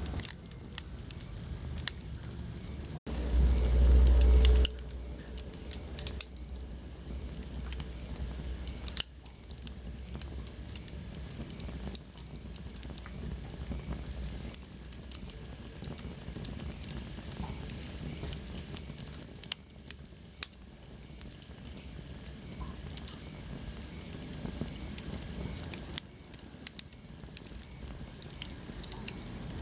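Wood fire crackling with scattered sharp pops. About three seconds in, a low rumble lasting under two seconds is the loudest sound, and around twenty seconds a faint high whistle slowly falls in pitch.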